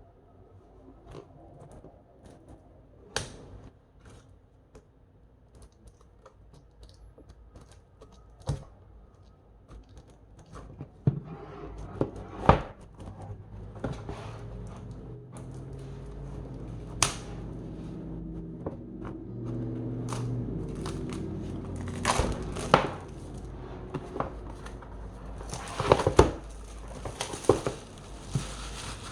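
Packaging being handled and opened: scattered clicks and knocks with crinkling and tearing, growing busier partway through. A low, steady hum comes in about a third of the way through, and a rustle comes near the end.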